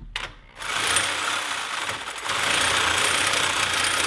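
Reciprocating saw cutting through a steel frame tube. It starts about half a second in and eases off briefly around two seconds in before cutting on.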